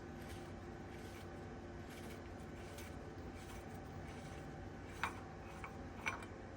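Steady workshop hum with two sharp metal clicks near the end, about a second apart, from parts and tools being handled during wheel-hub work.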